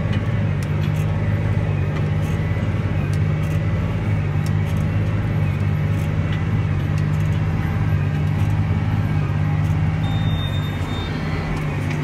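Steady drone of a John Deere 8335R tractor pulling a Massey Ferguson 2270XD large square baler, heard from inside the tractor cab: engine and PTO-driven baler running while baling straw. A brief thin high tone sounds about ten seconds in.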